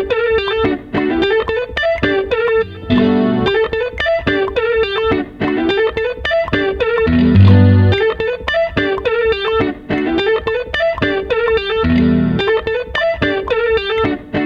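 Instrumental beat: a fast, looping plucked-string riff, guitar-like, over deep bass notes that come back about every four and a half seconds.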